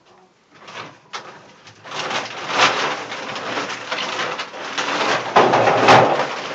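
Hens clucking softly amid rustling and scratching in the barn, starting about two seconds in and loudest a little over five seconds in.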